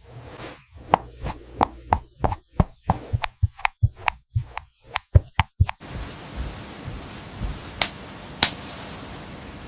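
A quick series of sharp taps and knocks, about two or three a second, that stops about six seconds in; after that a steady hiss with two more single clicks.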